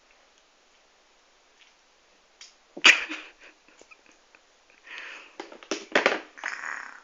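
Toddler eating custard at a high chair: short noisy bursts of breath and mouth sounds, the loudest about three seconds in, and a cluster of bursts with a few sharp knocks near the end.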